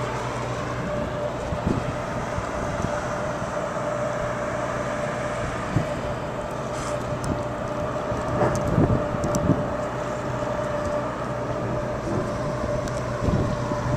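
Boat engine running steadily with a constant whine, over wind and water noise, with a few short knocks around the middle.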